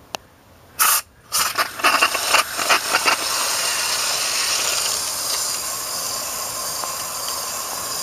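Hose-end foaming coil-cleaner sprayer (a "coil gun") spraying cleaner onto an air conditioner's dirty spine fin condenser coil. It gives a few sputtering spurts about a second in, then settles into a steady hiss.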